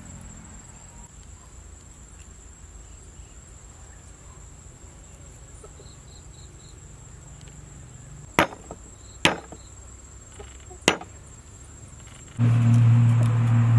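Three sharp knife chops on a wooden chopping block as fresh turmeric root is cut up, over a steady high insect whine. Near the end a loud, steady low hum starts suddenly.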